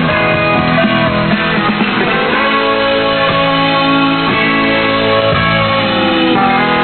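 Guitar-led music played from an off-air recording of a shortwave pirate radio broadcast received in upper sideband, with no treble above about 4 kHz.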